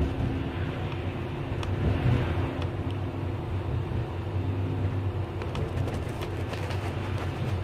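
Metre-gauge electric train running, heard from the driver's cab: a steady low rumble with a steady hum and a few light clicks.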